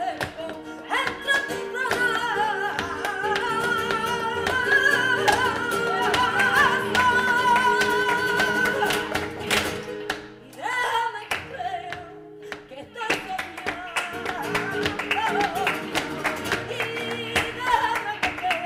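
Flamenco singing in a seguiriya, with long wavering, ornamented notes over acoustic guitar accompaniment. The voice drops out briefly a little past halfway while the guitar carries on, then comes back.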